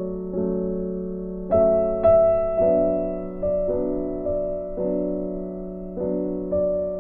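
Background music: slow, gentle piano, with a new note or chord struck about every half second to a second and left to ring and fade.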